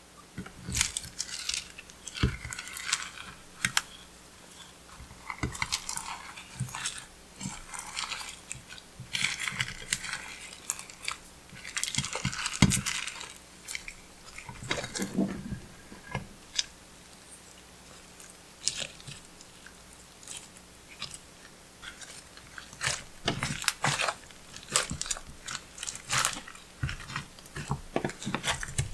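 Clear slime being squeezed and kneaded by hand, giving irregular bursts of wet, sticky clicks and crackles, with a quieter lull past the middle.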